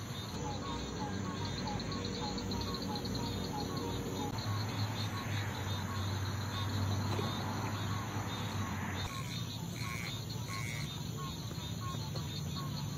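Night insects, crickets among them, chirping in a steady, evenly repeating chorus. A low hum swells in the middle and fades about nine seconds in, and a few short higher calls come near the end.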